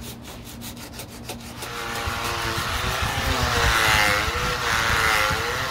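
Quick rubbing strokes of hand sanding on fibreglass body filler, then a cordless disc sander starts about a second and a half in and grinds across the filler. The sander grows louder, and its motor pitch wavers as it bears down on the surface.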